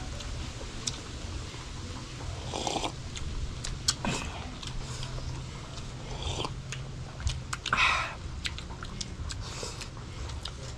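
Close-up eating sounds: lip smacking and chewing of rice and fish eaten by hand, with scattered small clicks and a few short mouth-noise bursts, the loudest about eight seconds in. A low steady rumble of wind on the microphone runs underneath.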